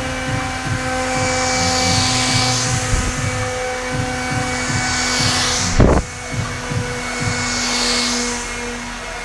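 Handheld leaf blower running steadily with a motor whine and a rush of air that swells and fades every few seconds as it swings around with the spinning hoop. A brief loud burst about six seconds in.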